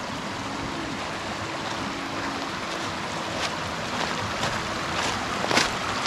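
Creek water running steadily, with a few sharp clicks in the second half.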